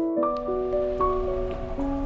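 Background music of soft, sustained overlapping notes that shift pitch every half second or so.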